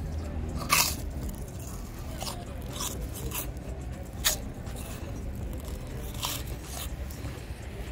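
Prawn cracker being bitten and chewed: a run of sharp crisp crunches, the loudest about a second in and again about four seconds in.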